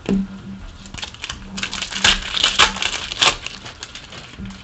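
Trading cards and their foil pack wrappers being handled: a quick run of sharp clicks and crinkles, loudest about two to three seconds in, after a dull knock at the start.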